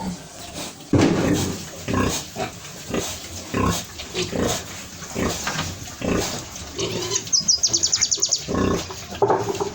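Pigs grunting, call after call at irregular intervals, with a quick run of about a dozen high clicks about seven seconds in.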